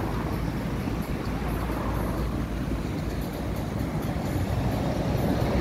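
City street traffic: cars driving past, a steady road noise with a low rumble.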